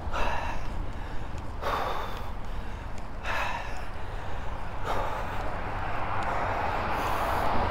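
A cyclist breathing hard under heavy pedalling effort, with a loud exhale about every second and a half, over a steady low wind rumble on the microphone. In the second half a steady rushing noise builds.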